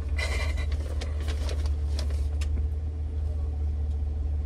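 Car engine running with a steady low rumble heard inside the cabin, while a paper takeout bag rustles and crinkles during the first couple of seconds.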